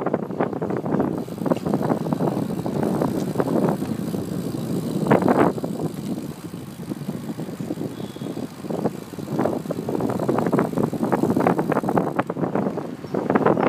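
Wind buffeting the microphone of a camera moving alongside a cyclist, rising and falling in uneven gusts, with a louder burst about five seconds in.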